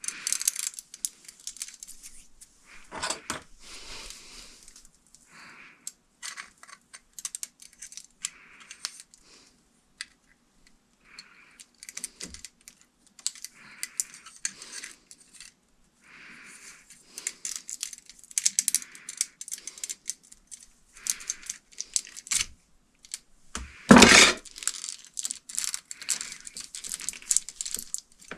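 Hands working with wiring, small metal parts and tools: irregular clicks, light scrapes and rustles, with a louder clatter near the end.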